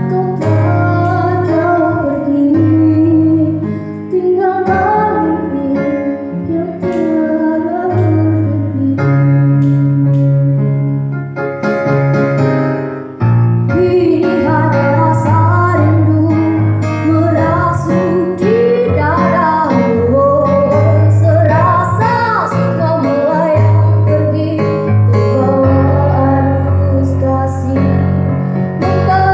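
A song performed with a singing voice over keyboard accompaniment, with sustained bass notes under a melody that wavers and slides in pitch.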